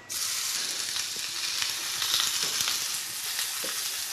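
Rashers of bacon frying in a hot griddle pan: a steady sizzling hiss with small crackles.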